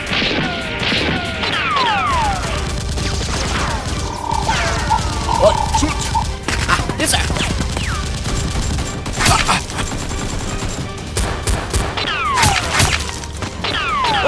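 Action soundtrack of background music with gunfire-style sound effects laid over it. There are clusters of quick falling sweeps near the start and near the end, and several sharp shot-like strikes in between.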